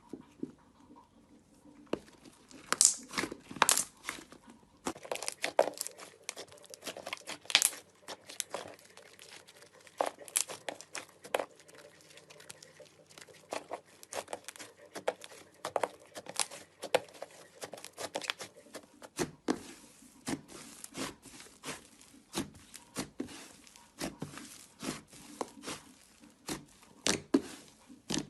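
Coloured slime being played with and mixed by hand, giving an irregular run of sticky crackles, pops and clicks.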